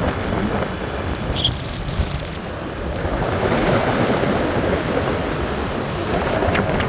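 Wind buffeting the microphone and road and traffic noise while riding along a city street, a steady rushing noise. A brief high chirp sounds about a second and a half in.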